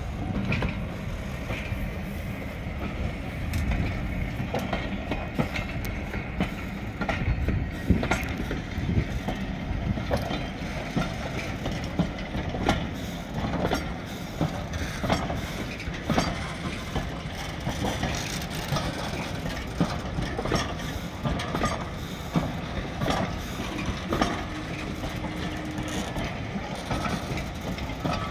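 Heritage railway train running along the track: a steady rumble with irregular clicks and knocks of the wheels and carriages over the rails, and a short steady tone near the end.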